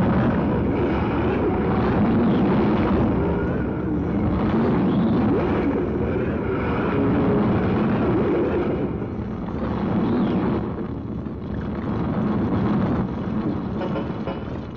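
Harsh noise music played from a cassette: a dense, distorted wall of noise with heavy low rumble, churning and shifting without a beat, its level dipping a little around nine to eleven seconds in.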